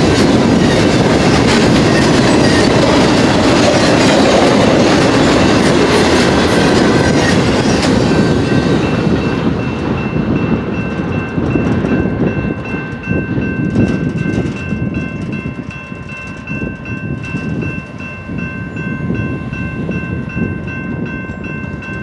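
Fast double-stack intermodal freight train rolling past, its cars' wheels running loud on the rail, then the sound drops off after about ten seconds as the train moves away. Several steady high ringing tones sound through the second half.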